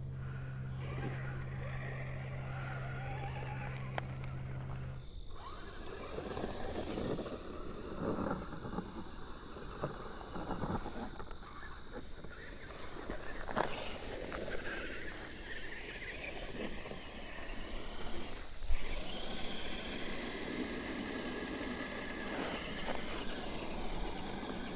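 Electric motor and gear drivetrain of a Redcat Everest 10 RC rock crawler whirring in stop-start bursts as it crawls over rough ground. The character of the sound changes suddenly about five seconds in and again near nineteen seconds.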